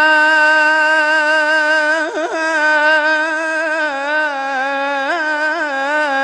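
Solo male voice singing an Arabic nasheed: one long held note, then quick melismatic turns on it in the second half. A single voice, with no instruments heard.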